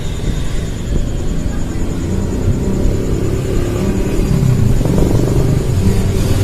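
A vehicle engine running with a low rumble that grows stronger about halfway through.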